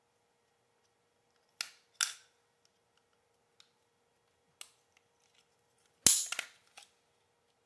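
Sharp plastic clicks and snaps as the safety plug assembly of a Hyundai Sonata Hybrid is forced apart by hand to get the 120-amp fuse out. Two snaps come early, then a few light clicks, and the loudest rapid cluster of snaps comes about six seconds in.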